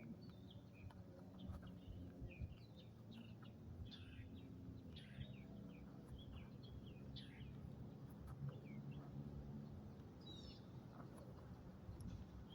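Faint birds chirping, many short calls scattered throughout, over a steady low background rumble.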